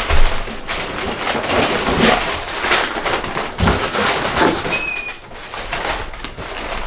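Paper and fabric wrapping rustling and crinkling as a ribbon-tied gift is pulled out of a cardboard box, with a brief high squeak about five seconds in.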